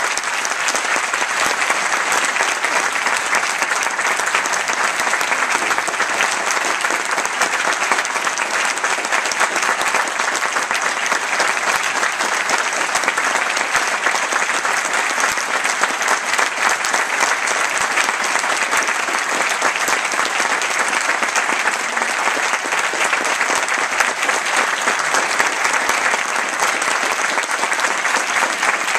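Audience applauding: a long, even round of clapping for a concert band at the end of a piece.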